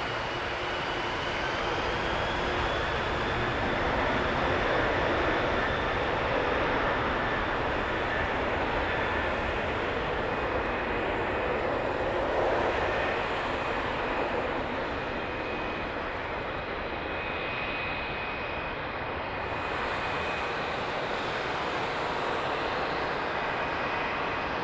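Boeing 747-400's four jet engines at takeoff power on the takeoff roll: a steady roar with a thin high whine that rises slightly in the first seconds. Loudest in the first half, easing a little as the jet moves away down the runway.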